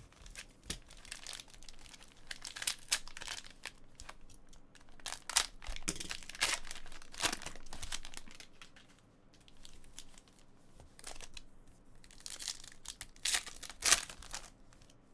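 Plastic Panini Prizm card pack wrappers being torn open and crinkled by hand, in irregular crackling bursts with short quieter pauses between them.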